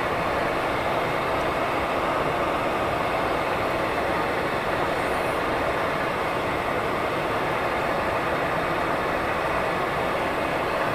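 Steady drone of a Bombardier Dash 8-Q400's two turboprop engines and propellers, heard from inside the cabin as the aircraft taxis.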